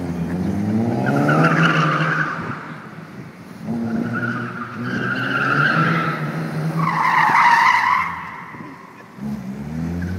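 BMW E36 coupe drifting in circles: the engine revs climb three times, and long tyre squeals rise over each slide, the loudest near the end.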